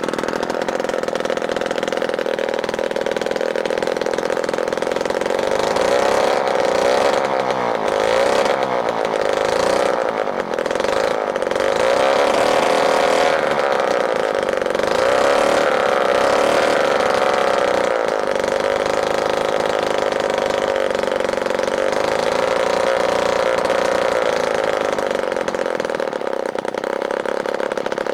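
A 1930s 29.9 cc Stuart water-cooled petrol model engine running steadily, its speed wavering up and down for several seconds about a quarter of the way in. It runs, but its timing and carburettor still need a little adjustment.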